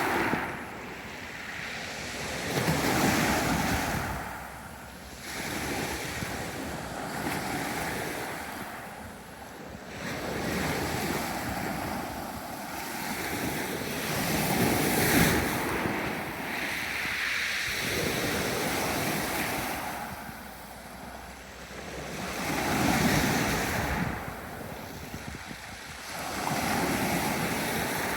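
Sea waves breaking and washing up a beach: a rolling hiss of surf that swells and falls away every few seconds.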